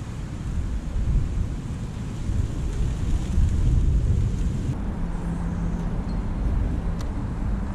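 Wind buffeting the camera's microphone: a heavy, uneven low rumble. About five seconds in the sound changes, and a low steady hum comes in for a couple of seconds, with a single sharp click near the end.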